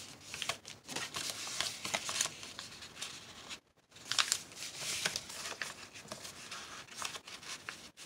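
Paper rustling and crinkling as a sheet of crumpled, aged paper is folded and creased by hand, with a brief pause about halfway through.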